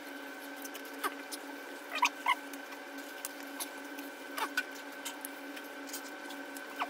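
Close-up mukbang eating sounds: wet clicks, smacks and squelches of chewing and of fingers picking through fish head and rice, a few at a time, over a steady hum. The loudest come about two seconds in, two close together.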